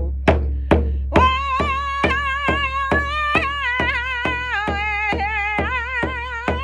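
Hand drum struck with a drumstick in a steady beat of about two strokes a second. About a second in, a woman's voice comes in over it, singing long held notes with a wavering pitch.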